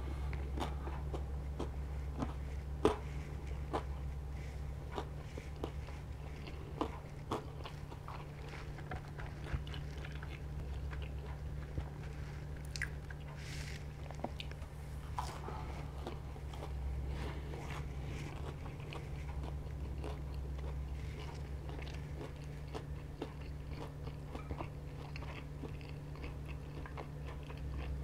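Close-miked mouth sounds of someone biting and chewing buttermilk fried chicken, with many small crunches and clicks scattered throughout, over a steady low hum.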